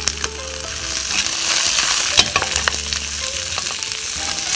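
Mixed vegetables sizzling in hot oil in a wok as they are stir-fried with a wooden spatula: a steady sizzle with scattered clicks and scrapes of the spatula against the pan.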